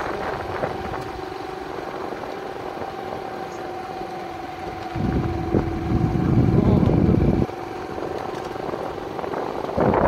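Yamaha YBR 125 motorcycle's single-cylinder engine running at a steady pitch. A low rush of wind on the microphone comes in for a couple of seconds in the middle.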